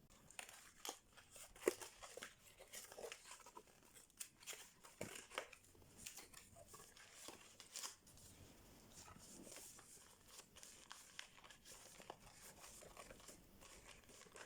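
Faint rustling, crinkling and tearing of packaging as an instant camera is unboxed, with many small ticks and taps.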